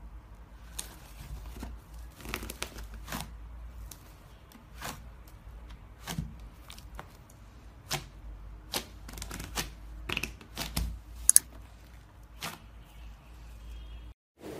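Hands kneading and squeezing a large mass of fluffy slime, giving off irregular sharp pops and crackles as trapped air bursts out; one pop about three quarters of the way through is much louder than the rest.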